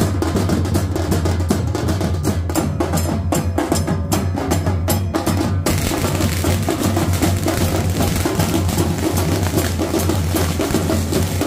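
Festival drums beating a fast, dense rhythm. A little over halfway through, the sound suddenly turns brighter and fuller.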